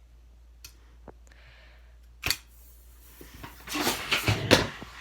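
A single sharp snip of scissors cutting a helium balloon, then about a second later a breathy rush of helium escaping from the balloon as it is breathed in, lasting about a second and a half.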